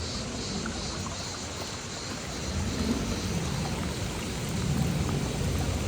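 Steady rushing of a waterfall, a dense even wash of noise with a deep rumble that grows louder from about halfway through.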